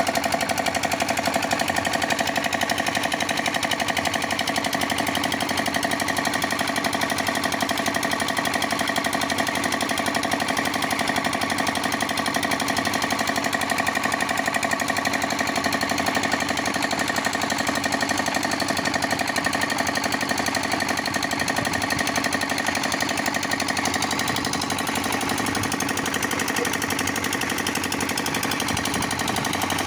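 Concrete mixer running steadily, its engine and drum machinery making a fast, even chatter; it drops slightly in level about three-quarters of the way through.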